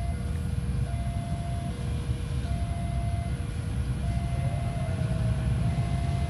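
Railway level-crossing warning alarm sounding two alternating tones, a higher and a lower, each lasting about 0.8 s. Under it is the low rumble of an approaching train, growing slightly louder in the second half.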